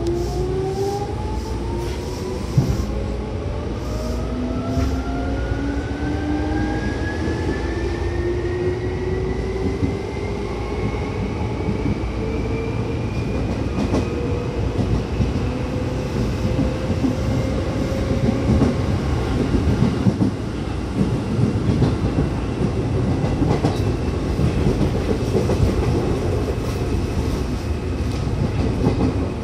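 Seibu 2000 series electric commuter train accelerating, heard on board: its traction motors give a whine that rises steadily in pitch and levels off about 15 seconds in. After that the rumble and clatter of the wheels on the rails grow.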